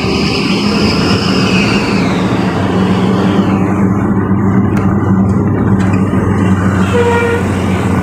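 Vehicle engine droning steadily while driving on a road, with a high whine that fades out about two seconds in. A short horn honk near the end.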